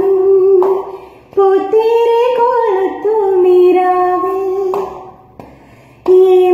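A woman singing a slow Malayalam song unaccompanied, holding long notes with small pitch bends, with two short pauses for breath, about a second in and about five seconds in.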